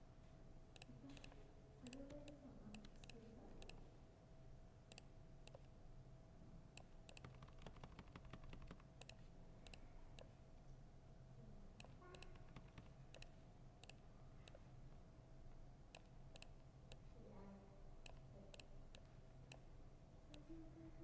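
Typing on a laptop keyboard: faint, irregular key clicks, with a quicker run of keystrokes about eight seconds in. Faint voices murmur in the background now and then.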